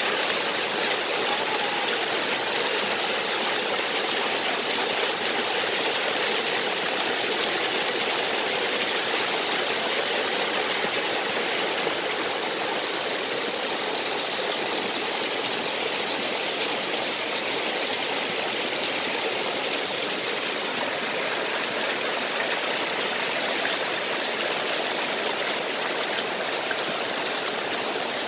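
Stream and small waterfall water flowing and splashing, a steady, even rush of water.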